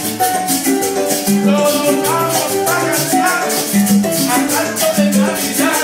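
Latin dance music with a steady shaker rhythm and a stepping bass line, and a woman singing along into a microphone.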